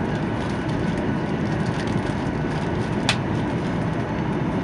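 Steady cabin noise inside a Boeing 737-800 airliner: an even rumble of engines and airflow. A single sharp click sounds about three seconds in.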